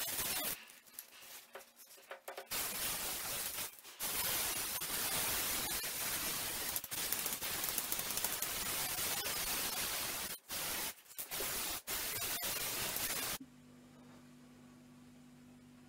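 Aerosol spray-paint can hissing in long sprays broken by a few short pauses, applying black paint to a steel frame. Near the end it gives way to a faint steady low hum.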